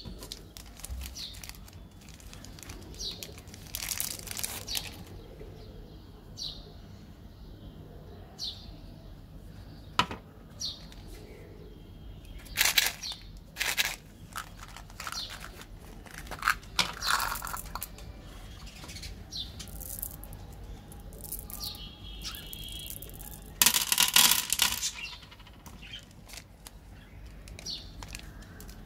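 Plastic candy wrappers crinkling and rustling as they are handled, with scattered sharp crackles and tearing as a wrapper is pulled open; the loudest bursts come about halfway through and again near the end.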